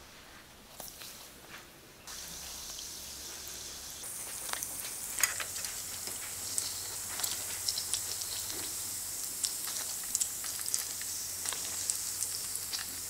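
Yeast-dough donut rings deep-frying in a pan of oil: a steady high sizzle with scattered crackles and pops. The sizzle starts about two seconds in and grows louder about four seconds in.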